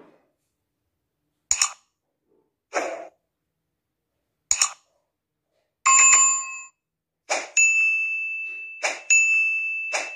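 Sound effects of an animated subscribe-button graphic: a few short, sharp hits, a chime about six seconds in, then a steady high bell-like ring with more hits over it as the notification bell and like, share and comment buttons appear.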